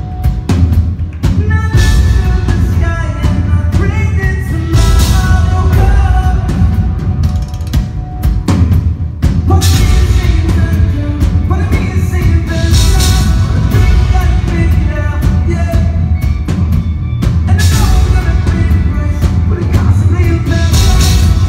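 Rock band playing live at full volume: drum kit, bass and guitars with a singer, with cymbal crashes about every eight seconds.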